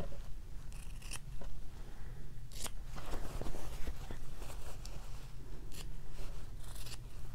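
Fabric scissors snipping through the corners of a sewn cotton pillow cover, several separate, irregular snips as the corners are clipped to trim the seam allowance, with a low steady hum underneath.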